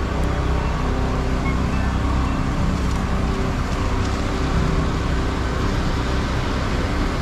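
Steady city street traffic noise: a continuous low rumble of road vehicles with a faint engine hum.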